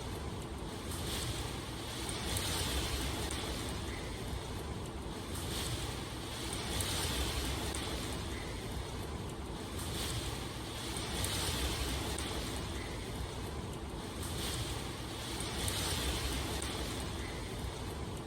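Steady rainfall, a continuous hiss that swells and eases gently about every two seconds.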